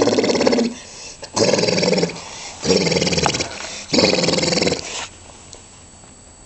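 A man making weird animal-like noises with his voice: four drawn-out, buzzy, pitched cries of about a second each.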